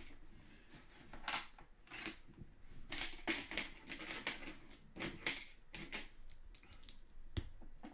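Plastic Lego pieces being handled and pressed onto a model: a string of small, irregular clicks and snaps.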